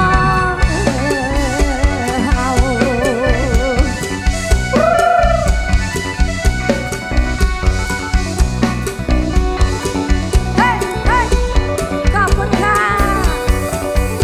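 Instrumental break of an Isan molam-style song played by a live band: a drum kit keeps a steady beat under a lead melody with wavering, ornamented notes. There is a long bent note about five seconds in, and quick upward swoops near the end.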